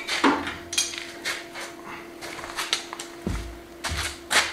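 Hand tools clinking and knocking as they are picked up and handled at a workbench, in an irregular run of short clatters, over a steady low hum.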